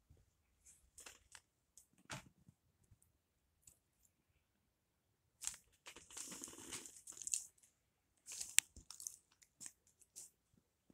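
Scattered close rustling and scuffling as a hand rubs a small dog's fur, with a longer stretch of rustling midway and another short cluster after it.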